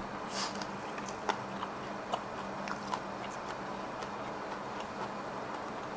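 Light scattered clicks and ticks of wooden chopsticks picking up a piece of fried fish cake from a ceramic plate, with a short soft hiss near the start.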